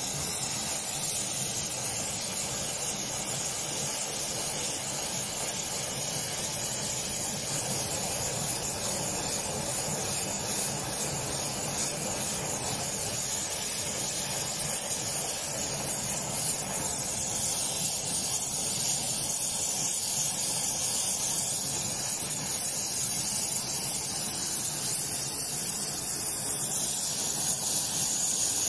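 Gas torch burning with a steady hiss, its flame held on the cast-iron body of a bent bench rebate plane clamped to a straight steel bar. The metal is being heated soft so that it can be straightened.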